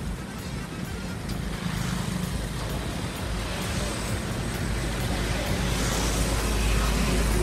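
Motor vehicle running: a steady low rumble with road hiss, growing slightly louder toward the end.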